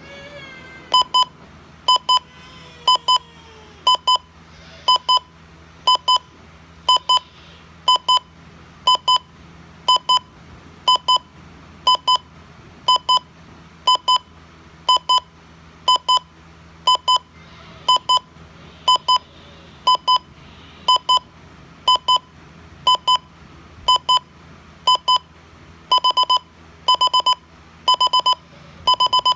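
Midland WR120 weather alert radio's alarm clock going off: electronic beeps in pairs, about one pair a second. Near the end the pairs give way to longer, quicker bursts of beeps.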